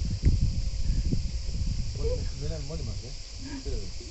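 Steady high-pitched insect chorus shrilling without a break. Low rumbling noise on the microphone is loudest in the first second or so, and a soft voice speaks in the second half.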